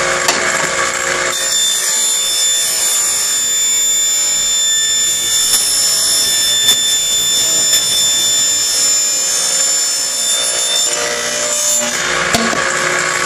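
Table saw running and ripping a 4-inch PVC pipe lengthwise. The blade is in the plastic from about a second in until about eleven seconds, with a steady high whine, then spins free again.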